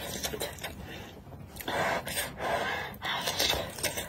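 A woman huffing out several sharp, breathy exhales through her open mouth, with most of them in the second half, to cool her mouth from a hot, chili-spicy bite.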